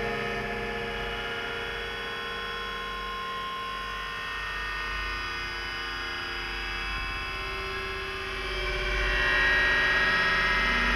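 Ambient drone soundtrack: layered sustained tones and a low hum, swelling louder about eight seconds in.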